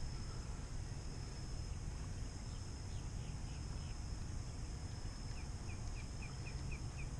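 A bird chirping: a few faint short calls partway through, then a quick run of about seven short falling chirps, roughly four a second, near the end, over a steady low rumble.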